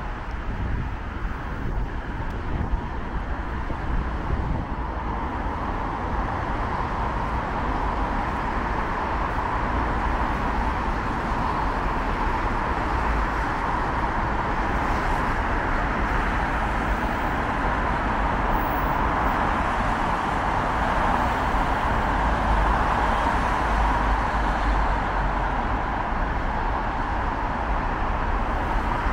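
Steady city road traffic: a continuous hiss of passing cars with a low rumble beneath, growing a little louder over the first several seconds.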